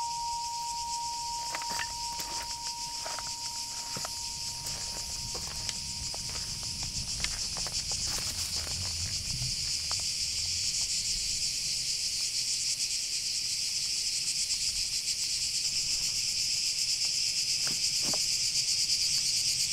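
A loud, steady, high-pitched shrilling of insects that slowly grows louder. Under it, a small hanging bell's single ringing tone dies away over the first several seconds, with a few faint clicks.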